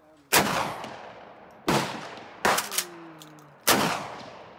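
Three shotgun blasts from a Kel-Tec KSG 12-gauge pump shotgun, the first two about a second and a half apart and the third two seconds later, each echoing away over about a second. A shorter sharp clack falls between the second and third shots.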